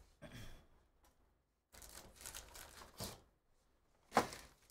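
Cardboard hobby box being opened and its stack of foil card packs pulled out: soft tearing and crinkling rustles, with one sharper, louder noise near the end.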